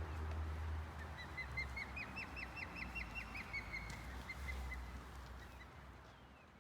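Osprey giving a quick series of about fifteen short, sharp whistled alarm calls over a steady low rumble: the bird is agitated by people near its nest.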